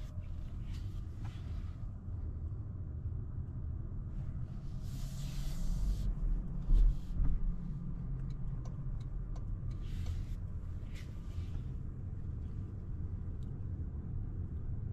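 2026 Toyota Corolla Cross driving, with a steady low road and engine rumble. A brief hiss comes about five seconds in, a louder thump near seven seconds, and another hiss around ten seconds.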